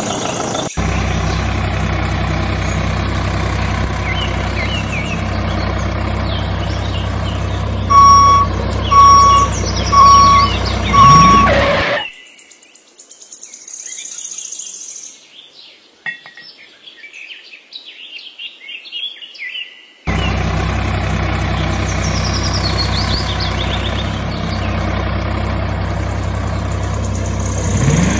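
Tractor engine sound running steadily, with four evenly spaced beeps about eight seconds in. About twelve seconds in it cuts to birds chirping for about eight seconds, then the engine sound returns.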